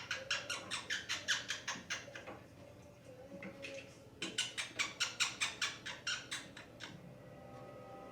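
Quaker parrot making kissing noises: quick runs of short smacking kisses, about five a second, thinning out in the middle before a second run.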